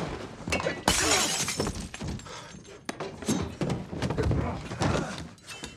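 Film fight sound effects: a loud glass smash about a second in, followed by a string of hits and heavy thuds as bodies crash to the floor.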